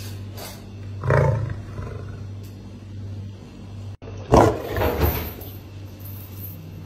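White lion roaring twice: a shorter call about a second in, then a louder, longer roar a little after four seconds in. A steady low hum runs underneath.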